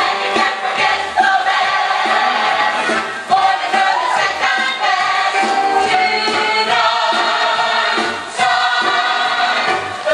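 A group of voices singing a song together over musical accompaniment.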